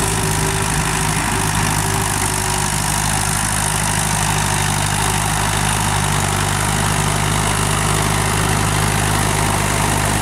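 Mahindra Arjun Novo 605 DI tractor's four-cylinder diesel engine running steadily while pulling a harrow through the field, its note even with no revving.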